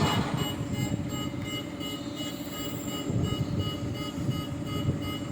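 A heavy vehicle engine running steadily with a low rumble, with music playing along with it.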